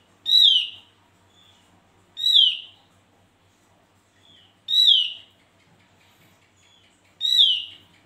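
Javan grey-throated white-eye (opior jawa) calling: four loud, short whistled notes, each sliding downward, about two and a half seconds apart, with fainter, softer notes between them.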